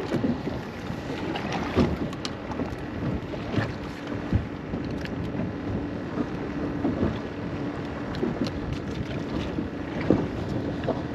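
Wind buffeting the microphone over a small drifting boat, with water sloshing and occasional sharp knocks from handling on deck. A steady low hum runs through the middle.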